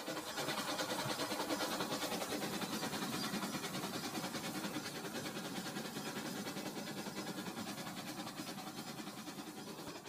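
Remote-control toy train running along plastic track: a steady whirring rattle of its small motor and wheels with a quick, even clicking, slowly growing fainter toward the end.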